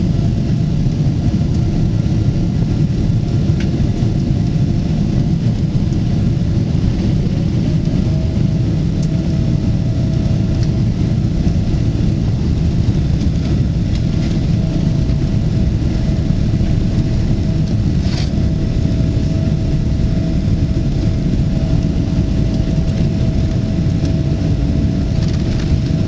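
Cabin noise inside a Boeing 777-300ER: a steady low rumble of its GE90 turbofan engines and the airflow, with a steady whine that steps up slightly in pitch about seven seconds in. A few faint clicks are heard.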